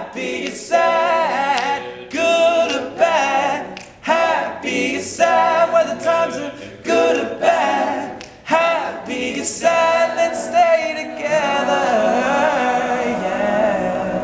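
All-male a cappella group singing in close harmony with no instruments, the song ending on a long held chord in the last few seconds.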